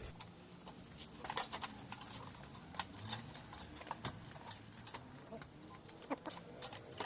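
Scattered light clicks and taps of parts being handled as a cover is fitted back onto a small mower engine.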